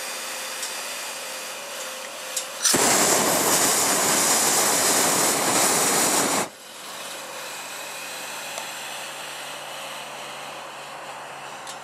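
Hot-air balloon's double propane burner firing one loud blast of about four seconds, starting suddenly about three seconds in and cutting off sharply. A quieter steady hiss runs before and after it.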